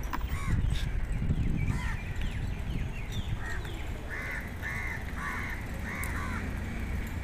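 Crows cawing several times in quick succession, most of the calls coming in a run in the second half, with small birds chirping now and then. A steady low rumble runs underneath.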